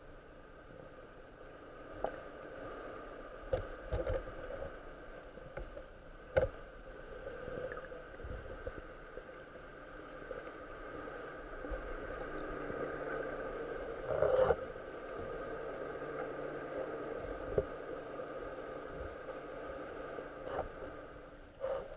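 Steady motor drone of a boat engine heard through the water, growing louder about halfway through, with a few sharp clicks and knocks.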